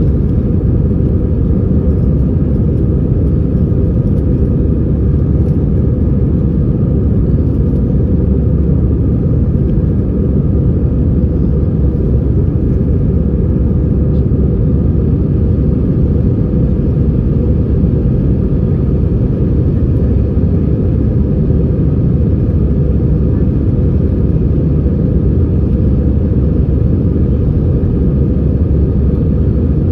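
Airbus A320-214's CFM56 turbofan engines and airflow, heard inside the passenger cabin as a steady, loud, low rumble with no change in pitch, typical of the climb after takeoff.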